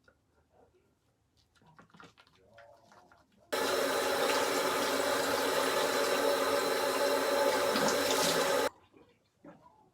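Water running hard from a tap for about five seconds, switched on suddenly and cut off suddenly, after some faint handling noises.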